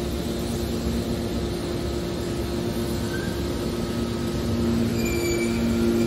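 Large hydraulic scrap metal baler running: a steady low rumble and hum from its hydraulic power unit, with a few brief high squeaks about three and five seconds in and a slight rise in loudness in the second half.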